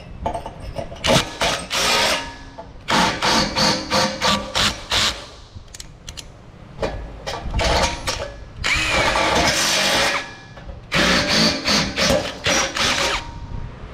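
Handheld power drill boring holes through a steel barrel lid. It runs in about five bursts of one to two seconds, stopping between holes.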